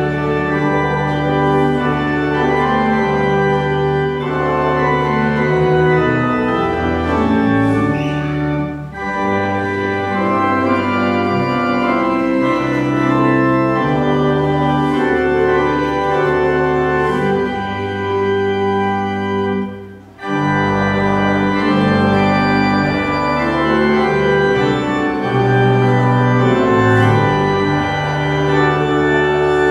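Church organ playing a hymn in full held chords, with short breaks between phrases about nine and twenty seconds in.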